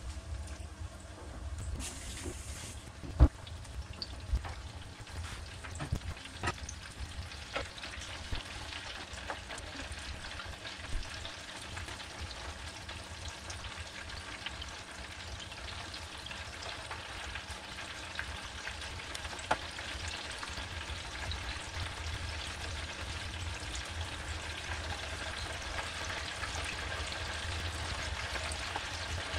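Breadcrumbed chicken goujons deep-frying in sunflower oil in an electric deep fat fryer set to about 170 degrees: a steady sizzle and crackle that grows a little louder toward the end. A few sharp clicks stand out in the first several seconds, the loudest about three seconds in.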